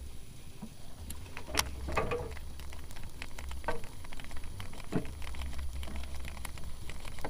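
Scattered small clicks and taps over a low steady rumble, from a walk-the-dog topwater lure being twitched and reeled back with a baitcasting rod and reel.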